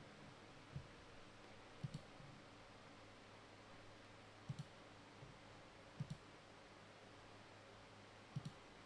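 Faint computer clicks over quiet room tone: a single click, then four quick double clicks spaced a couple of seconds apart.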